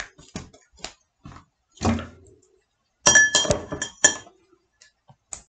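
Metal spoon knocking and scraping against a plastic tub while lifting out watermelon chunks, then a quick run of sharp, ringing clinks of the spoon against a glass about three seconds in.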